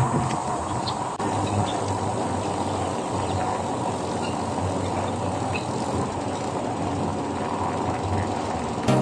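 Steady rolling and rattling noise of a fat-tire mountain bike being ridden along a paved path, with scattered faint clicks.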